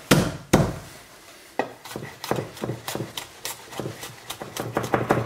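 Chef's knife on a wooden cutting board: two heavy thumps at the start as a garlic clove is crushed under the flat of the blade, then, from under two seconds in, a run of quick knife strokes on the board slicing and mincing the garlic, coming faster toward the end.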